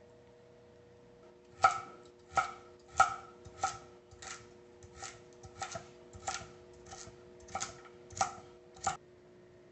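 Knife chopping vegetables on a cutting board: about a dozen sharp cuts at an uneven pace, roughly two a second, starting a second and a half in and stopping shortly before the end.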